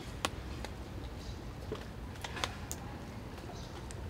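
A few faint, scattered clicks and taps over a low steady background hum.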